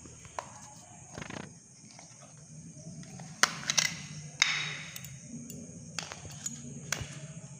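Plastic clicks and rattles from handling a remote control: its battery cover comes off and AA batteries are pushed into the compartment. There is a cluster of sharp clicks from about three and a half seconds in, then a few lighter ones, over a steady low hum.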